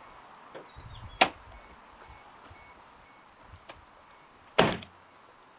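Steady high insect buzz outdoors. A sharp click comes about a second in and a heavier thud a little after four and a half seconds, handling noises around the car.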